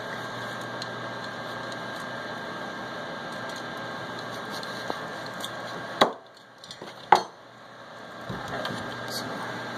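A large kitchen knife cutting a peeled raw butternut squash in half, the blade splitting through the hard flesh with two sharp cracks about a second apart, some six seconds in. A steady hum sits underneath and drops away for a moment after the first crack.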